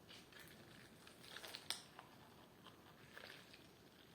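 Faint clicking and rustling from a small fidget toy being handled, with one sharper click a bit over one and a half seconds in.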